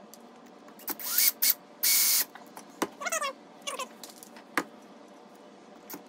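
Cordless drill driving a pocket-hole screw into wood in short trigger bursts: two brief ones about a second in, then a longer one near two seconds. A few short wavering squeaks and light clicks follow.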